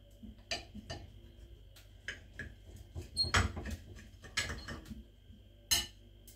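Knife and fork clinking and scraping against a ceramic platter while cutting into a hamburger steak. The taps come at irregular intervals, and the loudest is about three and a half seconds in.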